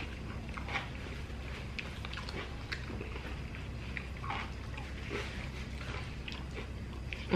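Close-up eating sounds: chewing with many short, scattered crunchy bites over a steady low hum.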